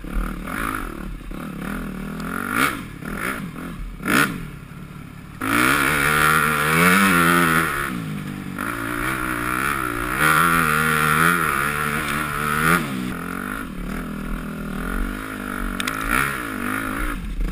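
2011 Yamaha YZ250F four-stroke single with an FMF PowerCore 4 exhaust, revs rising and falling with the throttle as it is ridden through the woods. It runs harder and louder from about five seconds in. A few sharp knocks come in the first few seconds.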